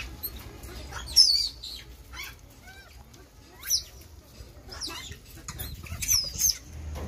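Rhesus macaques giving short, high-pitched squealing calls about five times, the loudest about a second in, as they squabble over scattered chickpeas.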